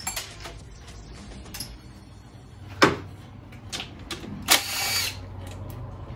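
Hand work in a car's engine bay: scattered clicks and knocks of a tool and parts, with one sharp knock about three seconds in. About a second and a half later a cordless drill-driver runs for about half a second.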